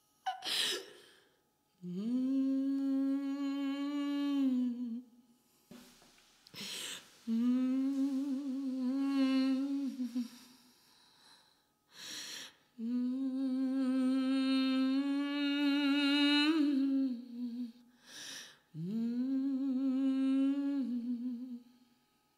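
A voice humming four long, held notes on nearly the same pitch, with a slight waver in the second and third. The third note bends sharply upward at its end. A short, loud hiss comes before each note, part of a free vocal improvisation with sound objects.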